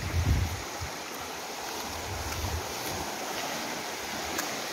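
Small stream rushing over rocks, a steady rush of water. Low rumbles on the microphone in the first half second and again about two seconds in.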